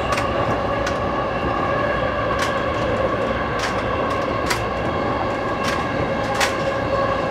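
JR East E233-1000 series electric train running along the line: a steady whine of several tones over the rumble of the wheels. Sharp clicks, about one a second, come as the wheels cross rail joints.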